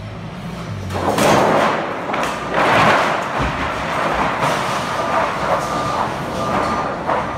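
Lumber boards sliding off a high warehouse rack and clattering down, a long run of wooden knocks and thuds that starts about a second in. In the second half, faint short beeps from the forklift sound through the clatter.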